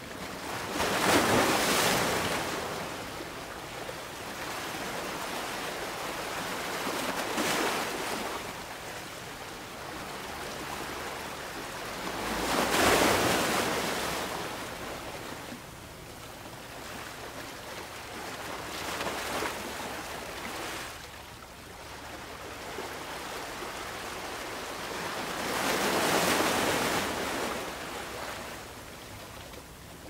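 Sea waves breaking on a shore in slow surges, about one every six seconds, with a steady wash of surf between them.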